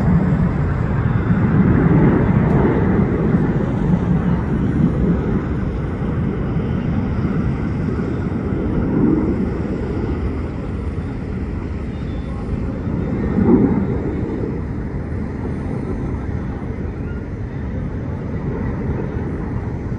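Jet engines of a tight formation of fighter jets passing overhead: a steady, noisy rumble that slowly fades.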